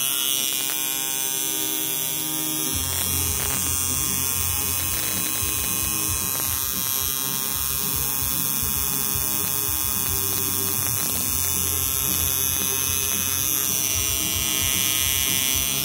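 2009 Danny Fowler Flatline coil tattoo machine, a liner, running at 7.2 volts with a steady, smooth electric buzz. Its low buzz grows fuller about three seconds in.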